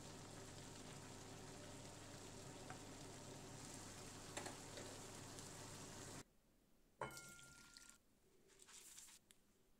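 Diced bacon and carrot sizzling in a frying pan, a steady faint hiss with a low hum under it and a light tap or two of chopsticks. At about six seconds it cuts off, followed by a single clink on a metal pot and a short rustle.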